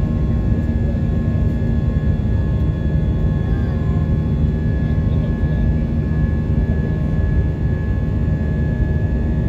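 Airliner cabin noise during the climb after takeoff: a steady, heavy engine drone and rushing air, strongest in the low hum, with a thin constant whine running through it.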